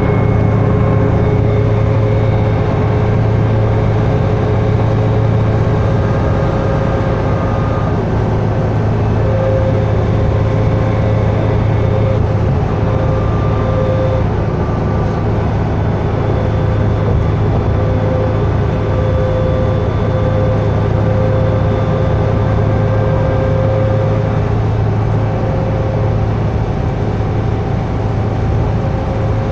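Steady drone inside a New Flyer D60LFR articulated diesel bus with a Cummins ISL9 engine, cruising on the freeway at an even pace, its engine running steadily under road and tyre noise.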